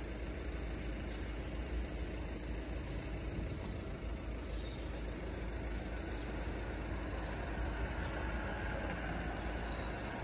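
Steady outdoor background noise with a low wind rumble on the microphone, unchanging throughout.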